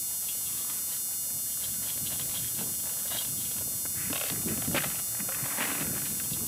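Dobermans eating from a steel bowl: scattered short chomping and clinking noises, strongest about four to five seconds in, over a steady hiss of old videotape.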